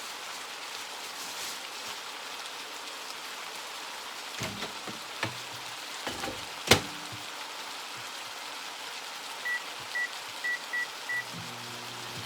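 Chicken and peppers sizzling steadily in a frying pan, with a few clicks and one sharp click as a microwave door shuts. Then five short high beeps from the microwave keypad, and the microwave starts running with a low hum near the end.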